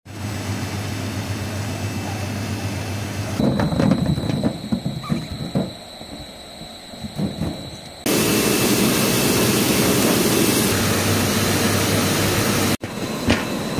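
Vegetable processing machinery running with a steady hum, then whole onions tumbling from a crate onto a stainless-steel incline conveyor with a run of irregular knocks and thuds. About eight seconds in it changes to a loud, steady rush of water from a washing machine's spray bars and churning tank.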